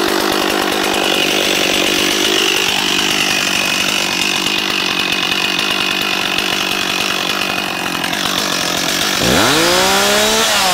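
STIHL 026 Pro two-stroke chainsaw idling steadily, then revved up near the end with a sharp rise in pitch.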